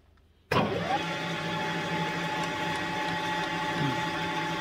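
Milling machine spindle motor starting about half a second in, its whine rising quickly as it spins up, then running steadily with a countersink bit chamfering the drilled holes in a motorcycle cylinder head.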